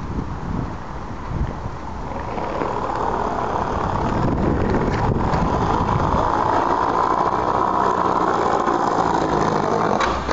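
Skateboard wheels rolling over block paving: a steady rolling noise that builds after the first couple of seconds and holds, with wind buffeting the microphone at the start and a sharp click near the end.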